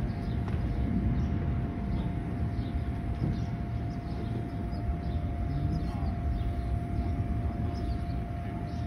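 Electric blower running steadily to keep an inflatable bounce-house water slide inflated: a constant drone with a thin, unchanging whine over it.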